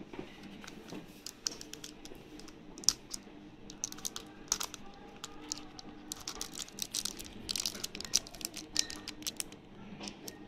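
Handling noise from a boxed vape tank atomizer and its packaging: irregular small clicks, taps and light crinkles of its plastic wrap as it is lifted out of the foam insert and turned in the fingers.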